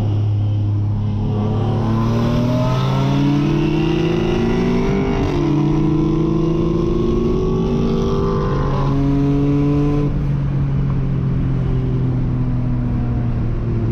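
Cabin sound of a single-turbo Nissan 370Z's VQ37 V6 pulling hard, its engine note rising through one gear and, after a quick shift about five seconds in, rising again through the next. About nine seconds in the driver lifts off and the engine settles to a steady cruising drone.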